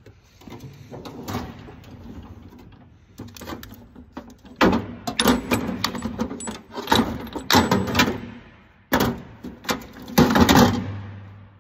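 A steel tool chest drawer is pulled open, then metal sockets and tools clink and rattle against each other and the drawer as a hand rummages through them. The loudest clatter comes in the second half.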